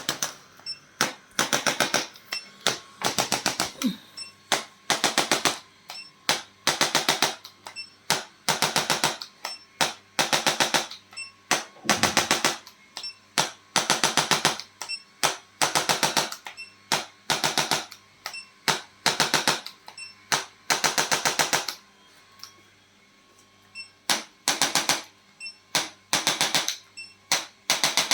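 Rapid trains of sharp mechanical clicks in repeated bursts of about half a second to a second, with short gaps and one longer pause about four-fifths of the way through, typical of a handheld chiropractic adjusting instrument firing its impulses.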